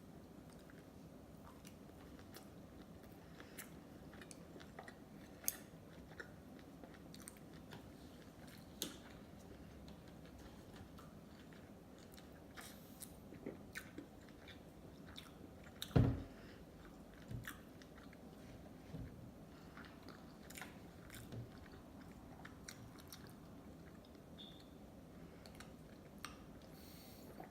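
Close-miked chewing of sushi: soft wet mouth clicks and smacks scattered through, with one louder knock about halfway.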